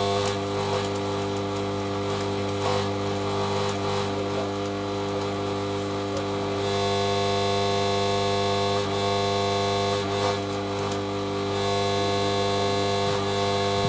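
Stick (MMA) welding on a Draper inverter arc welder: the arc crackles and sizzles steadily over a constant electrical hum, with scattered short pops.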